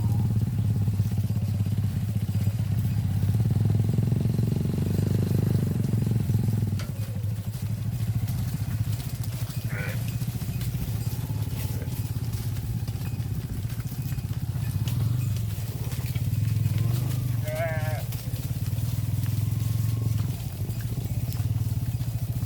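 A small engine runs steadily, dropping slightly in level about seven seconds in. Short, wavering animal bleats break in about ten seconds in, again near eighteen seconds, and at the end.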